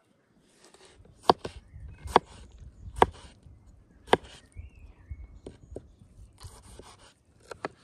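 Chef's knife cutting through ripe tomatoes on a wooden tabletop, each cut ending in a sharp knock of the blade on the wood. Four loud knocks come about a second apart, then lighter ones follow.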